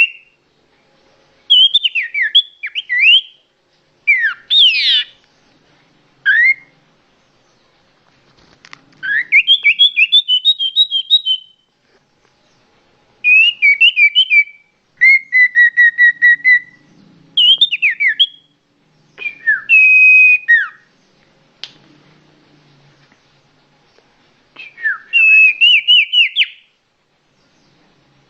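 A songbird singing loud, varied whistled phrases of one to two seconds each, with quick up-and-down slurs and runs of repeated notes, separated by short pauses.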